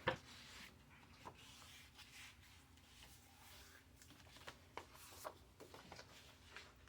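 Faint handling of paper: soft rubbing and scattered light taps as paper pieces are shifted and folded, with one sharper tap at the very start.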